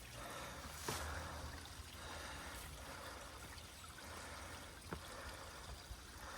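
Faint, steady rush of flowing water, with a few light clicks.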